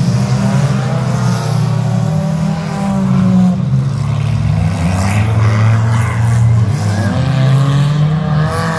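Several modified front-wheel-drive demolition derby cars' engines running and revving together, their pitch rising and falling as the cars push around the dirt arena.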